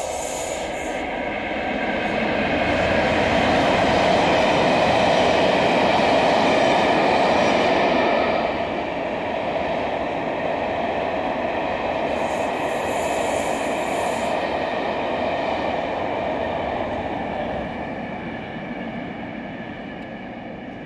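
Mainline diesel locomotive running past at the head of a passenger train, its engine noise building to a peak in the first eight seconds, then the steady rumble of the coaches' wheels on the rails, with a brief high squeal about twelve seconds in, fading near the end.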